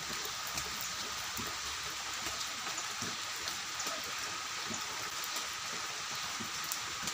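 Steady rain falling on wet ground and puddles: an even hiss with scattered faint drop ticks.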